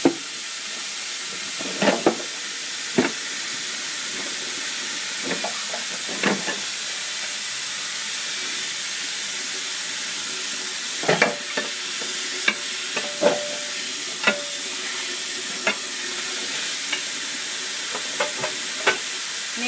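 Dishes being washed by hand at a kitchen sink: tap water running steadily, with scattered clinks and knocks of dishes and utensils, most of them in the second half, a few ringing briefly.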